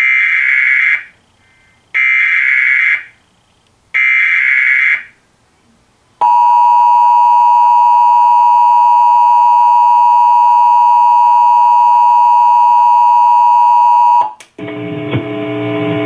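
Emergency Alert System tones played through a TV's speakers: three one-second bursts of SAME header data about two seconds apart, then the steady two-tone EAS attention signal held for about eight seconds before cutting off. A voice begins near the end.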